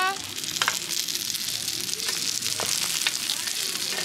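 Korean dumplings sizzling steadily as they pan-fry in a grill pan over a campfire, with a few sharp ticks through the hiss.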